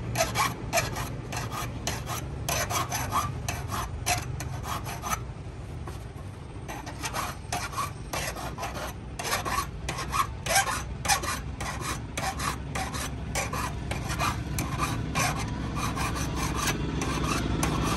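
Steel hand-saw blade having its teeth sharpened with a small hand file: short rasping file strokes, about two a second, with a pause of a second or so a little before the middle.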